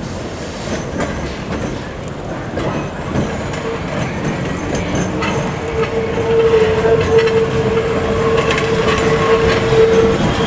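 Heritage electric tram running along the rails and growing louder as it nears, with clicks from the wheels on the track. From about halfway a steady whine rises to become the loudest sound.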